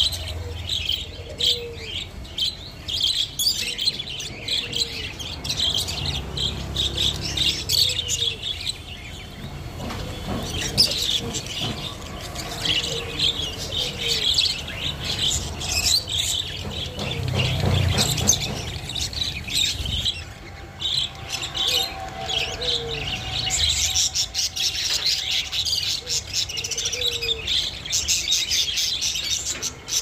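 A flock of caged budgerigars chirping and chattering continuously, a dense stream of short, high-pitched calls.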